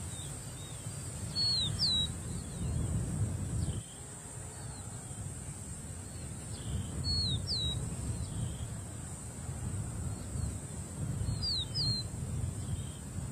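A bird repeating a short, quick two-note chirp three times, about five seconds apart, over a steady low rumble and a faint high hiss.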